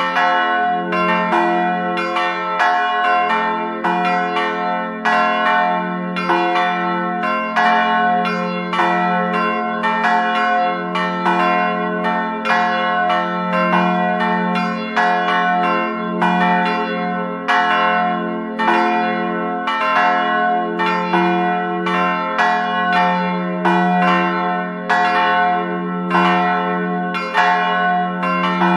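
Church bells ringing a continuous peal: strike after strike, about two to three a second, their tones overlapping over a lingering low hum.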